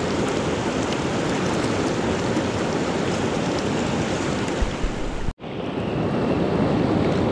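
Shallow rocky river rushing steadily over stones and through small rapids. A few dull bumps come just before a sudden split-second drop-out about five seconds in, after which the rushing resumes.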